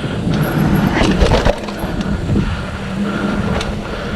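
Mountain bike riding along a dirt trail: steady tyre and ride noise with the bike rattling, and a few sharp clicks.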